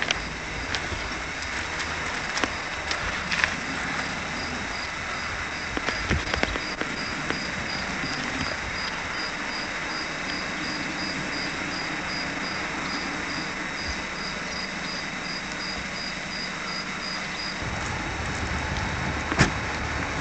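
An insect chirping steadily in short, high-pitched pulses, about three a second, over a steady outdoor hiss. Near the end the chirping stops, a low rumble comes in, and there is one sharp click.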